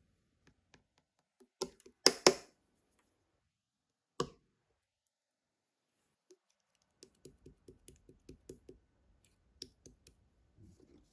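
Clear jelly slime being pressed and pulled by hand, making sticky clicks and pops: a couple of loud pops about two seconds in, another after four seconds, then a quick run of about five clicks a second after seven seconds.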